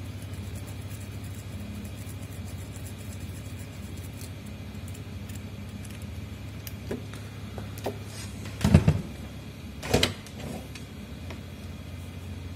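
Steady low hum, broken about nine and ten seconds in by two short clattering knocks from handling a soldering iron and phone parts on a workbench.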